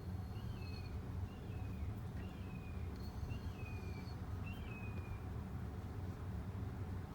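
A bird calling five times, about a second apart, each call a quick upward flick sliding down into a falling whistle. It sits over a steady low hum, with a thin, high, steady tone in two short stretches.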